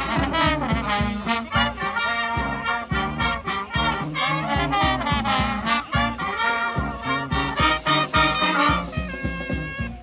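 Brass band playing a swing-style tune: saxophones, trumpets, trombones and sousaphone together over a steady beat. About nine seconds in the playing thins to a few held notes.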